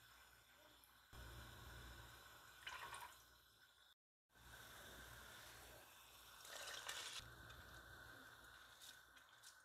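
Faint drips and splashes of seasonings and rice being poured into a pot of chicken stock, over a low steady hum. The sound drops out completely for a moment near the middle.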